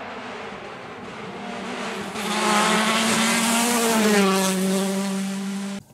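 Rally car engine at speed, approaching and passing close by, growing loud from about two seconds in. Its pitch drops as it goes past, and the sound cuts off suddenly near the end.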